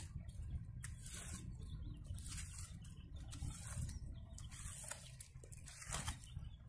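Hoe blade scraping and slapping over a pile of wet clay mud mixed for bricks, smoothing its surface in repeated strokes about once a second, over a steady low rumble.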